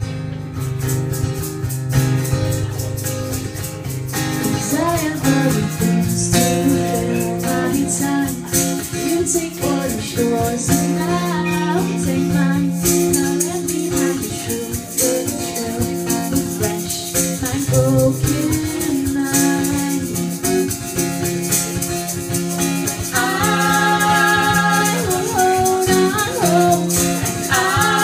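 A woman singing to her own steady strummed acoustic guitar. The guitar plays alone for the first few seconds, and her voice comes in about four seconds in.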